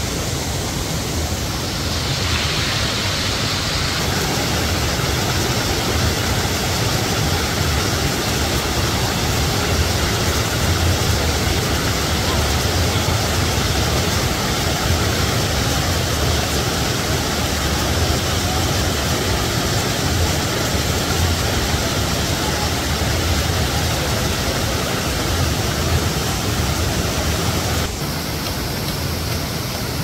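Water of the Töss river cascading over limestone ledges into a pool: a steady rushing and splashing. It turns slightly brighter about two seconds in and a little quieter near the end.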